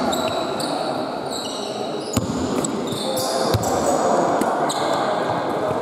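Basketball game on a wooden sports-hall court: trainers squeak in many short, high chirps as players move, and the ball thuds on the floor a couple of times.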